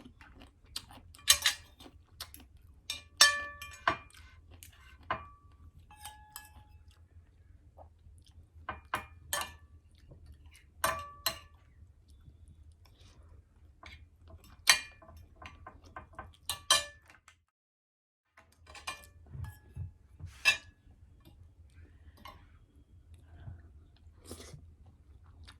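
Eating utensils clinking against a plate or bowl: a dozen or so scattered taps, several of them ringing briefly, between soft close-up chewing sounds.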